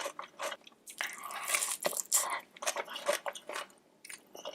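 Close-miked eating sounds: someone biting and chewing food, with irregular crunchy, wet mouth sounds, quieter near the end.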